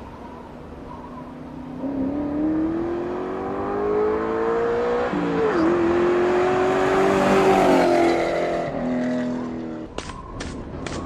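Car engine accelerating, with a gear change about five seconds in, then rising again and passing close by, its pitch falling as it goes. Near the end, after a cut, a steady high tone with a few evenly spaced ticks.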